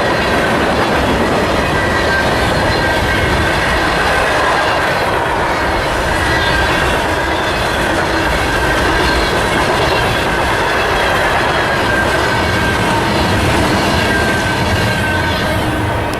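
Freight train rolling past, its steel wheels clattering steadily over the rail, with a faint high wheel squeal above the clatter.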